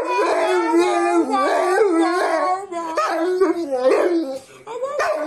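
Large black-and-tan dog making long, warbling howls that glide up and down in pitch: the 'talking' a dog does back at its owner. The run breaks off briefly a little before three seconds in and for a moment more around four seconds in.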